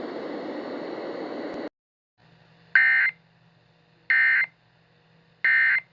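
A steady hiss that cuts off less than two seconds in, then three short, identical bursts of warbling data tones, evenly spaced about a second and a half apart: the Emergency Alert System SAME end-of-message (NNNN) code closing the alert.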